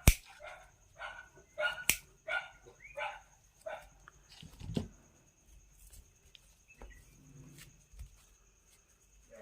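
A dog barking repeatedly, about two short barks a second, over the first four seconds, with fewer barks later. Two sharp clicks stand out, one at the very start and one about two seconds in: a cutter snipping through the binding tied around a cooler motor's coil.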